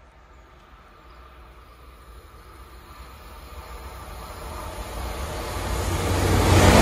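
Deutsche Bahn ICE train approaching at speed: the rush of wheels on rail and air grows steadily louder, from faint to loud as it nears the end.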